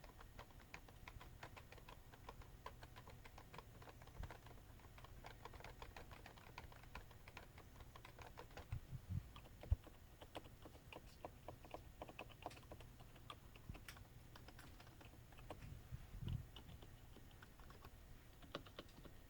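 Soft, rapid keystrokes of gentle typing on a Topre silent keyboard with electrostatic capacitive rubber-dome switches. A few deeper thuds stand out about 4, 9 and 16 seconds in.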